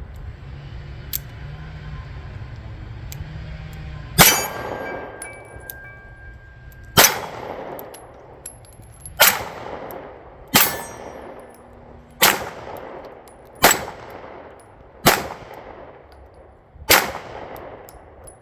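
Girsan Regard MC 9mm pistol fired eight times in a slow, uneven string, starting about four seconds in, each shot echoing briefly. A faint metallic ring follows some of the shots.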